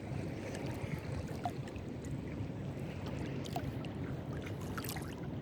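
Water sloshing and lapping, a steady low wash with a few small ticks and drips.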